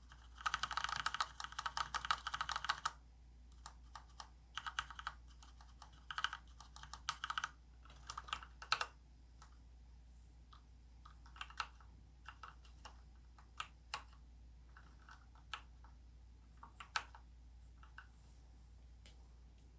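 Typing on a Varmilo VA104M mechanical keyboard with Cherry MX Red switches: a fast flurry of keystrokes in the first few seconds, shorter bursts until about nine seconds in, then scattered single key presses.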